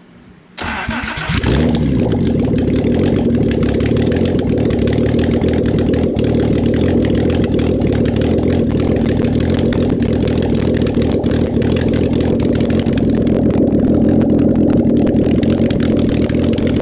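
VR6 engine starting: it cranks and catches about half a second in, then runs steadily.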